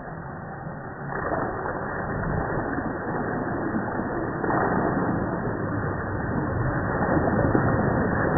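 Axial SCX10 radio-controlled scale truck's electric motor and drivetrain running as its tyres churn through a muddy, water-filled rut. A rough, continuous noise that steps up about a second in and grows louder as the truck comes closer.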